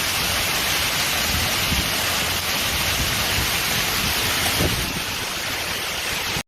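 Steady, unbroken rush of water, even in level throughout.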